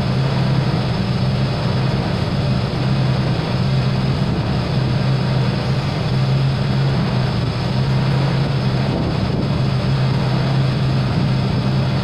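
Ford Bronco II's 2.9 L V6 engine idling steadily, with a low even hum, while it warms up after a no-start repair.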